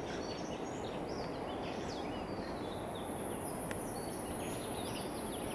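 Several birds calling, with many short chirps and whistles, over a steady background rush.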